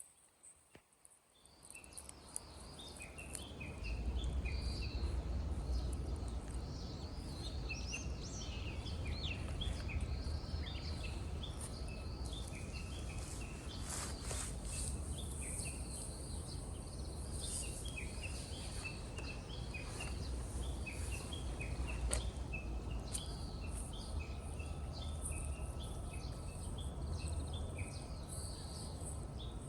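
Outdoor ambience that fades in over the first few seconds: many birds chirping in quick, short calls over a steady high insect-like hiss and a deep low rumble.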